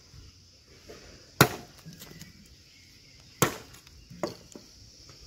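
Hand axe (tangi) chopping into a bamboo pole on the ground: two sharp chops about two seconds apart, with a few lighter knocks between. A steady high insect drone runs underneath.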